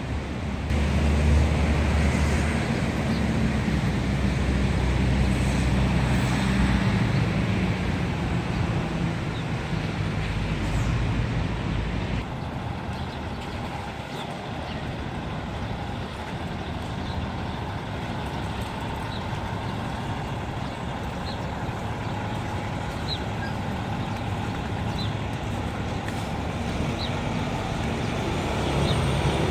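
City street traffic: a heavy vehicle's engine runs close by for the first dozen seconds, then gives way to a steady, quieter hum of traffic.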